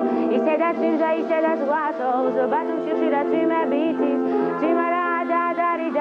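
Music: a woman singing with heavy vibrato over a steady instrumental accompaniment.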